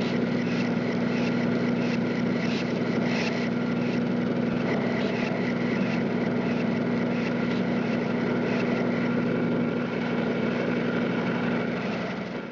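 A motor or engine running steadily with an even hum.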